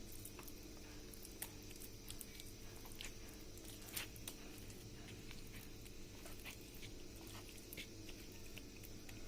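Faint wet squishing and a few light clicks as marinated chicken pieces are dipped into beaten egg in a bowl, over a low steady hum.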